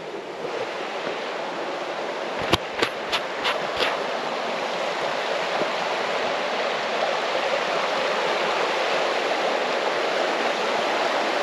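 River rapids rushing over rocks: a steady rush of water that grows louder as it is approached. A quick run of five sharp knocks comes a couple of seconds in.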